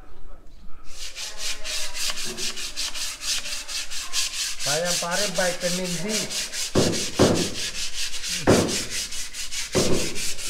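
Hand sanding: sandpaper rubbed over a surface in quick, even back-and-forth strokes, starting about a second in and keeping a steady rhythm. A few dull knocks come in the second half.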